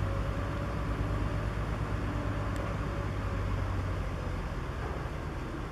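Heavy engine running steadily with a low hum, likely the truck crane or the ship, which eases off about four seconds in.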